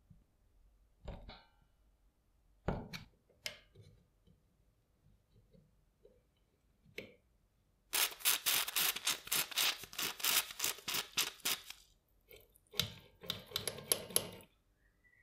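A few scattered clicks and knocks, then rapid back-and-forth scraping strokes by hand, about six a second for some four seconds, and a second, shorter run of strokes near the end.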